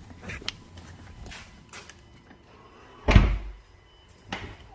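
Tesla Model X car door shut with one heavy thump about three seconds in, after a few light clicks and knocks, with another knock near the end. Under it runs a faint steady high buzz, the constant noise the parked car keeps making.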